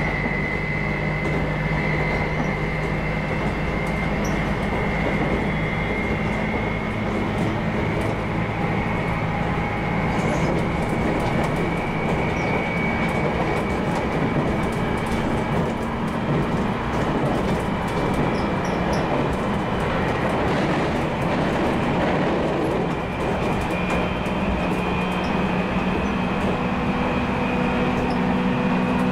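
JR Kyushu 811 series electric train running, heard inside motor car MoHa 811-10: steady rail and running noise under a high whine that climbs slowly in pitch, with the tones shifting about 23 seconds in.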